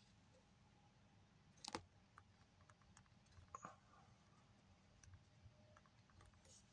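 Near silence with faint, scattered clicks of typing on a phone's on-screen keyboard, the loudest about 1.7 s in.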